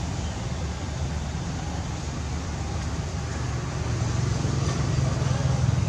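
Low, steady rumble of a running motor vehicle engine, growing a little louder about four seconds in.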